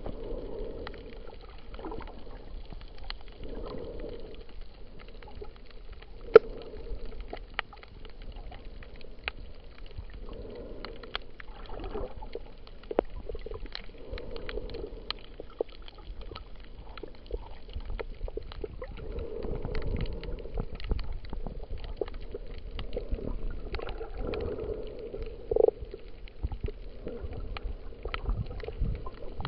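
Underwater sound through a submerged camera: scattered sharp clicks and crackles throughout, with muffled gurgling swells every few seconds.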